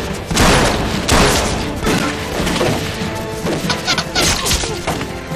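Fight sound effects over background music: a run of hard hits and thuds of blows with wooden clubs, the two heaviest about half a second and a second in.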